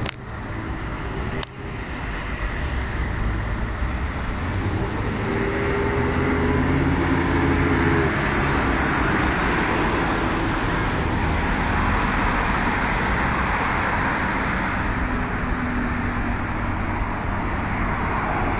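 Motorboat engine running under way, with a steady rush of water and wind over it. The engine note strengthens about four seconds in and eases back near eight seconds; two brief knocks sound near the start.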